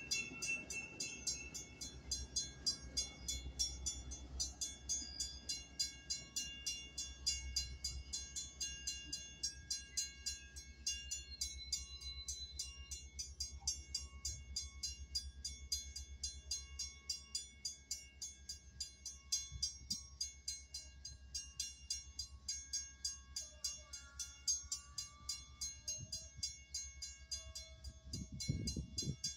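Grade-crossing warning bell ringing steadily, about three strokes a second, while a Metra bilevel commuter train rolls through the crossing with a low rumble that eases off after the first half.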